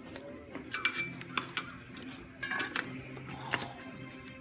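Flathead screwdriver prying at a stuck valve cover on a Toyota Supra engine, working it loose: a handful of sharp metallic clinks and short scrapes, the first ringing briefly about a second in.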